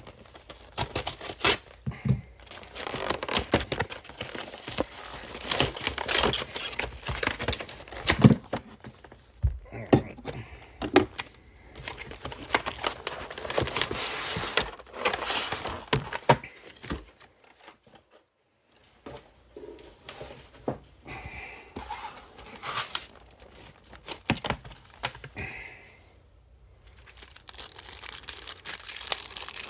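Plastic and cardboard packaging of a Pokémon card collection box crinkling and tearing as it is unwrapped by hand, in irregular bursts of crackle, with a brief lull about two-thirds of the way through.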